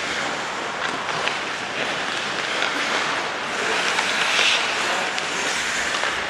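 Steady hiss of ice hockey skates carving the rink ice, with a few faint clicks.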